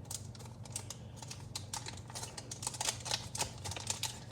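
Packaging of a Polaroid instant film pack being opened and handled: irregular small clicks and crinkles of the wrapper, a few a second.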